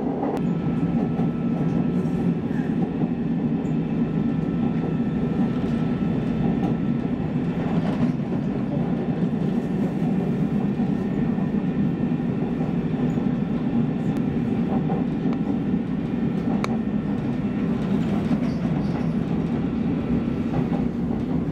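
Inside a moving Seoul Subway Line 2 train car: steady running rumble with a faint whine above it and a couple of light clicks from the track.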